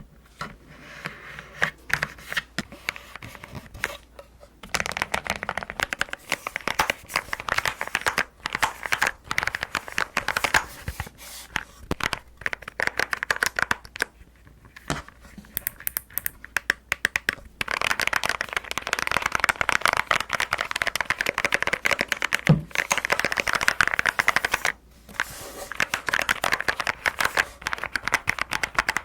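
Rapid typing on a custom mechanical keyboard, its keys giving the pebble-like 'dogak-dogak' clack it was customised for. Dense runs of key clacks a few seconds long, broken every few seconds by short pauses.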